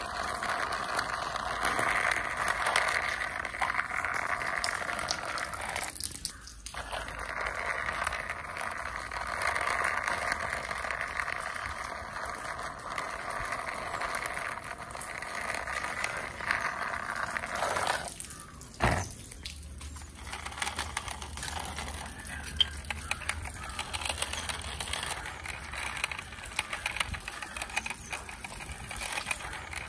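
Small toy vehicles rolled by hand along a concrete surface: a steady whir of the wheels, with small clicks and rattles. It breaks off briefly twice, and after the second break it turns quieter and more clicky.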